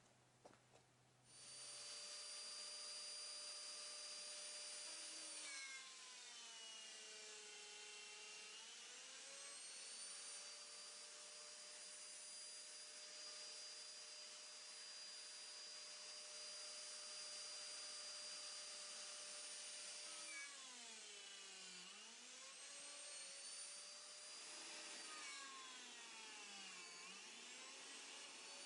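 High-speed electric power tool motor starting up, then running with a high whine; its pitch drops and recovers several times as it slows under load, cutting into wood.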